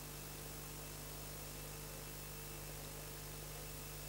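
Faint, steady mains hum with hiss, the background noise of an old videotape soundtrack copied from a VCR.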